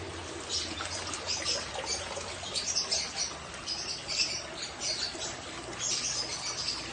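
Water splashing and dripping as a hand net is swept through a shallow fish pond and lifted out, an irregular crackle of small splashes.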